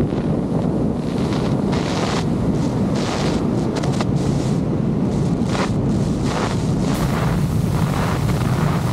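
Wind rushing and buffeting over the camera microphone in a BASE jump's freefall: a loud, steady rush of air with many short gusty surges, growing hissier about seven seconds in.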